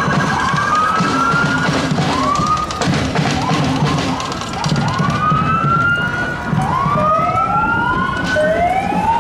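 Emergency-vehicle sirens giving short rising whoops, over and over and overlapping one another, over a steady low rumble.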